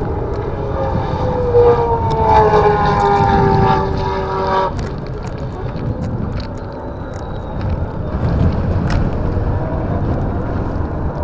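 A Brabham BT62 racing car's V8 engine passing at speed, its note falling steadily in pitch. The note cuts off sharply about four and a half seconds in, leaving a low rumbling noise.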